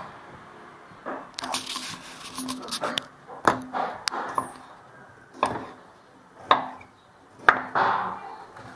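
Kitchen knife cutting pumpkin into chunks on a round wooden chopping block: sharp knocks of the blade hitting the board, about one a second in the second half.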